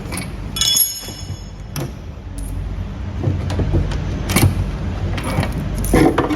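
Metal cover parts of a commercial dehumidifier being taken off by hand: scattered clicks, knocks and clatter, with a brief metallic ring about half a second in.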